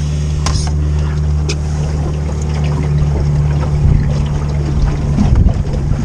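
Small boat's outboard motor running steadily at low speed, ending about five seconds in and giving way to wind and handling noise. Two sharp knocks sound in the first couple of seconds.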